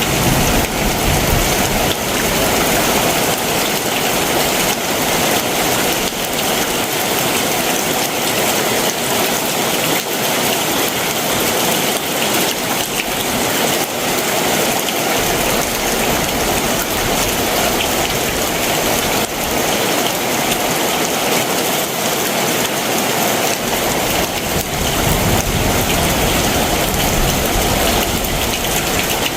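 Heavy summer monsoon downpour: a steady, dense hiss of rain falling on surfaces. A low rumble joins in for the last few seconds.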